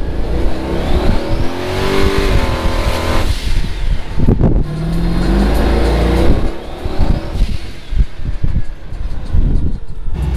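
Turbocharged Chevrolet Nova accelerating hard under boost: the engine revs up twice with a short break about halfway, like a gear change, and a faint rising whine over it.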